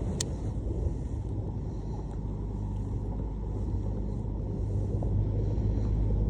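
Steady low rumble of a running engine, with a small sharp tick just after the start.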